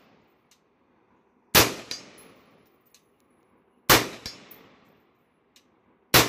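Three AR-15 rifle shots (.223/5.56), about two and a half seconds apart. Each is followed a fraction of a second later by the fainter clang of the bullet striking the steel gong at 100 yards.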